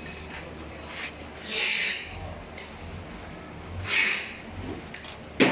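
Parts of an aluminium rack being handled during assembly: two short hissing scrapes, then a sharp click near the end.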